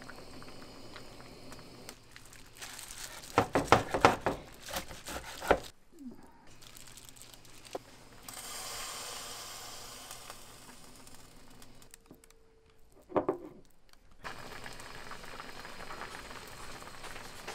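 A steel pot of spicy pollack stew bubbling at a steady boil, heard in several short stretches. A few seconds in there is a run of loud knocks and clatter, with one more knock later on.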